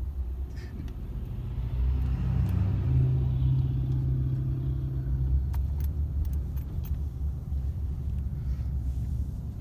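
A car's engine and road rumble from inside the cabin while driving, the engine note growing louder about two seconds in and easing off about halfway through. A few light clicks or jingles come about halfway through.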